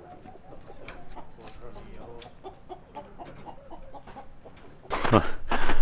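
Chickens clucking quietly and irregularly, unsettled after being jolted off their roosts in a moved chicken tractor.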